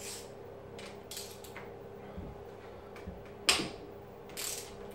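Hand tools being readied and put to the cylinder-head bolts of a Honda CBX engine: a few light clicks and clinks, with one sharp knock about three and a half seconds in.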